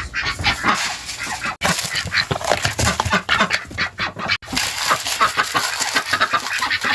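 A flock of backyard poultry calling busily, with many quick, overlapping calls.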